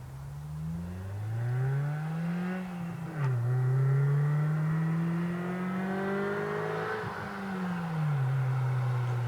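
Acura RSX Base's four-cylinder engine with aftermarket intake, header and exhaust, accelerating hard: the revs climb, drop sharply at a gear change a little after three seconds in, climb again, then fall away and settle about seven seconds in.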